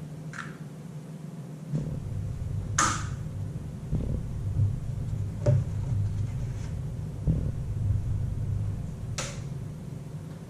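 Eggshells being cracked and handled over a glass cup: a few sharp cracks and small taps, the loudest about three seconds in and again near the end, over a steady low rumble.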